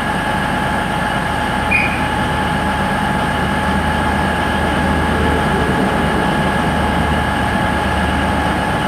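InterCity 125 (HST) Class 43 diesel power cars pulling a train out of the station: a steady high whine over a low engine rumble that swells about halfway through and drops away near the end.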